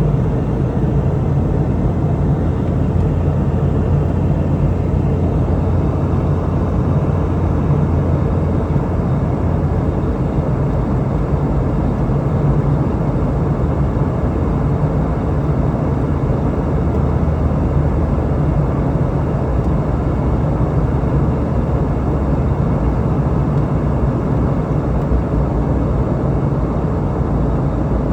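Steady cabin noise inside a Boeing 717-200 in flight: the rush of airflow and the low, even drone of its rear-mounted Rolls-Royce BR715 turbofans, with no change in pitch or level.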